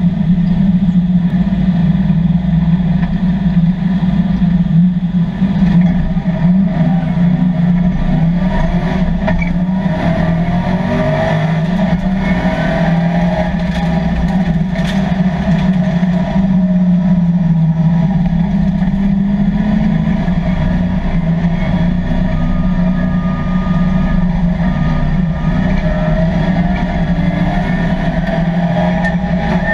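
LS3 V8 of a 1987 Chevrolet Camaro race car running hard under racing load, heard from inside the cabin. It makes a loud drone whose pitch wavers only a little.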